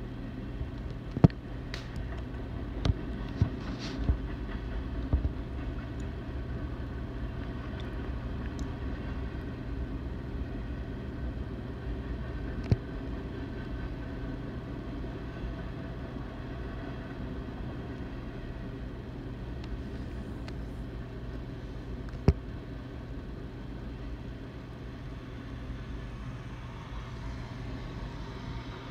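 BNSF manifest freight train rolling past: a steady low rumble of freight cars on the rails, broken by a few sharp clanks, several in the first few seconds and a couple later on.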